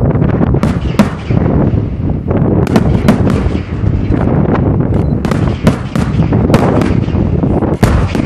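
Aerial fireworks shells bursting in quick succession: a continuous deep rumble of booms, cut through by about a dozen sharp cracks.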